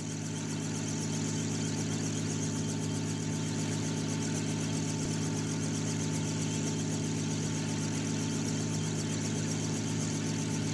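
Steady drone of an aircraft's engine: a low hum made of several even tones, with a faint hiss above it, unchanging throughout.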